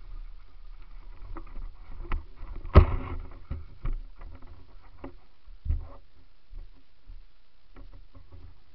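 Mountain bike clattering and rattling over a rocky trail, with low wind rumble on the camera microphone. A sharp knock about three seconds in is the loudest, another comes near six seconds, and then it settles to a quieter rumble with a few light rattles.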